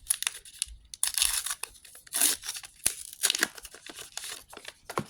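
A foil trading-card booster pack being torn open and its wrapper crinkled, in several ragged rips and crackles with a sharp click about three seconds in.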